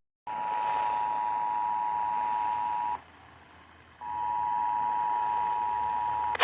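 Emergency Alert System two-tone attention signal, a steady dual-pitched beep. It sounds for under three seconds, breaks off for about a second, then resumes.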